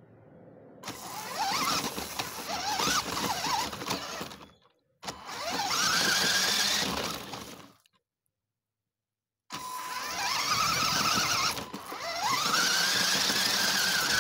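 Radio-controlled car driving over dry grass: its motor whine rises in pitch each time it speeds up, then holds steady, over a rushing noise from the wheels in the grass. The sound cuts out completely twice, once briefly and once for about a second and a half.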